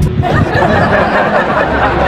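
Many voices chattering and laughing at once: a dense crowd babble.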